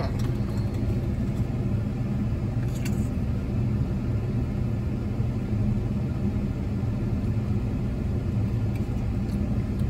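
Steady low rumble and hum of a car's engine idling, heard from inside the cabin.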